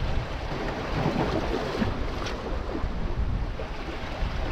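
Wind buffeting the microphone as a low rumble, over small sea waves washing and splashing against rocks.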